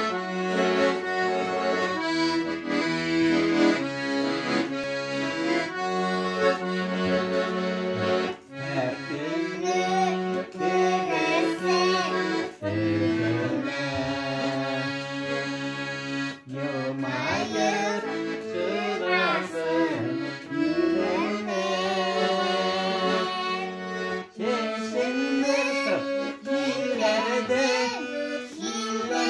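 Accordion playing a song melody in sustained chords, with a child's singing voice joining it about a third of the way in.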